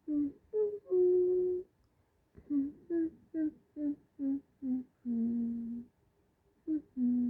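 A person humming a short tune: quick notes broken by three longer held ones, about a second in, about five seconds in and near the end.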